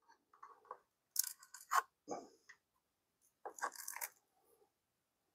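Light clicks, scrapes and rustles of long metal tweezers probing moss and soil in a small plastic cup, with the cup handled. They come in two short clusters, about a second in and again past three seconds.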